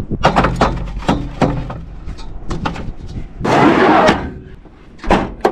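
Metal gear being handled and stowed at the back of a vehicle: a quick run of clinks and knocks, a louder scrape about three and a half seconds in, then two sharp bangs near the end.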